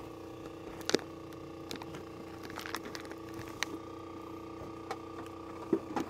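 Scattered knocks and clatter of fishing gear being handled against the side of a small wooden fishing boat, the loudest about a second in and another near the end, over a steady hum.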